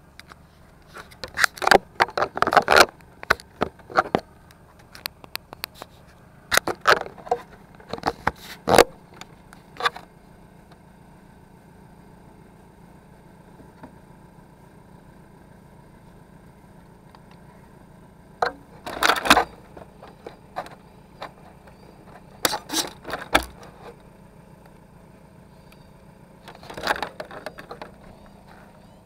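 Bursts of rattling and scraping on a Tamiya Lunch Box radio-controlled truck's plastic body, picked up by the camera mounted on its roof, coming in five separate clusters. A steady low hum runs between them.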